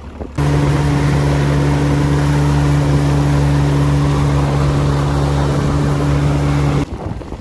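Boat engine running steadily under way, a loud even drone with a constant pitch and wash noise over it; it cuts in suddenly about half a second in and stops suddenly near the end.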